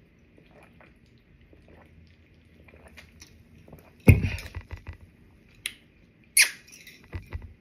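Faint swallowing and mouth sounds while drinking from a can. About four seconds in comes a sudden loud sound, and about two seconds later another sharp one.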